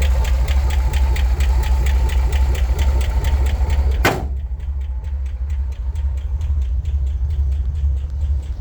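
Chevrolet Corvair air-cooled flat-six idling with a rapid, even lifter tick, a cold-engine lifter noise that goes away once warm. About four seconds in there is a sharp click, after which the ticking is fainter.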